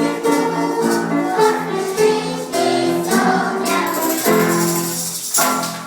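Primary-school children's choir singing with instrumental accompaniment and sharp percussive hits. The sound fades down near the end.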